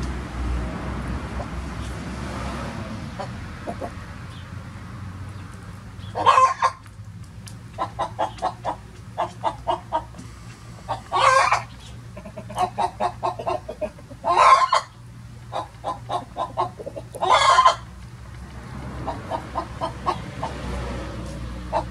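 Chickens clucking in quick runs of short notes, several a second, broken four times by a loud call about half a second long.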